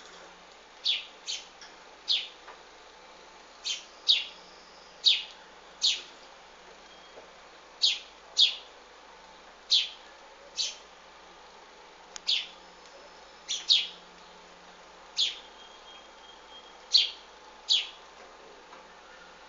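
Short, sharp bird chirps, each dropping quickly in pitch, mostly in pairs and repeated every second or two.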